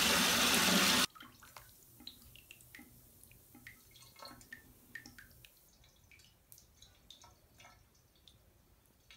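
Water running into a bathtub, cutting off suddenly about a second in; then scattered drips and small plinks of water in the tub.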